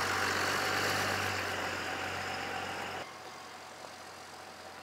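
An engine idling with a steady low hum, which cuts off abruptly to a quieter background about three seconds in.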